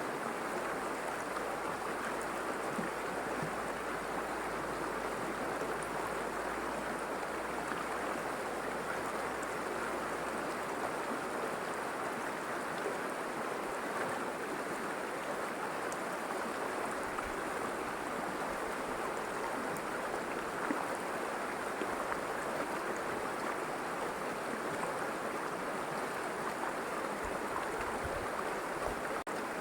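A river flowing: a steady, even sound of running water.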